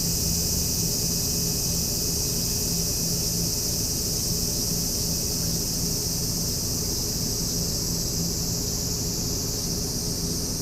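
Steady outdoor ambience: a continuous high-pitched insect-like hiss over a faint low hum, unchanging throughout.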